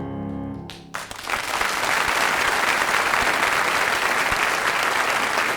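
The last piano chord dies away, and about a second in a live audience breaks into steady applause.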